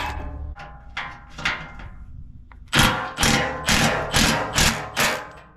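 Metallic knocks and bangs from a tool working loose the bolts that hold a Toyota Tacoma's steel skid plate: a few scattered knocks, then about halfway in a quick run of six sharp, ringing bangs.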